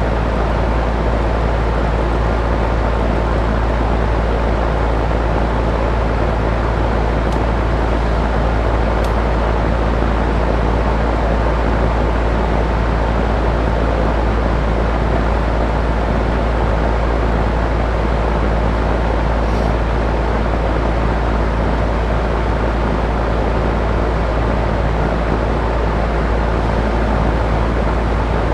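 Steady, loud rushing noise with a deep low hum that does not change, and a few faint clicks.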